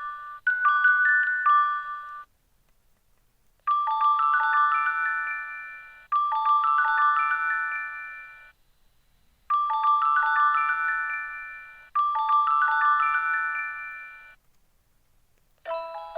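Aiphone VH-RM video door intercom receiver (GP3 type) playing its electronic call chimes. One tone ends, and after a short pause another begins whose quick run of rising chime notes repeats four times in two pairs. Near the end a lower, different call tone starts.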